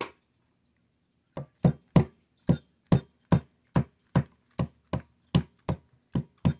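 A small hammer tapping a pin punch to drive a trigger-assembly pin out of an HW30S spring-piston air rifle. There is one tap, then after a pause a steady run of about a dozen evenly spaced taps, a little over two a second.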